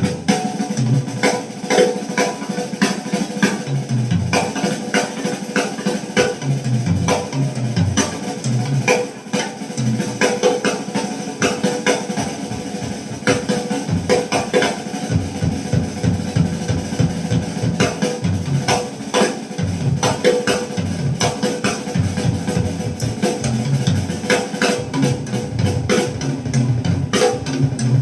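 Jazz recording with a busy drum kit (bass drum and snare) over a walking bass line, played back through hi-fi loudspeakers.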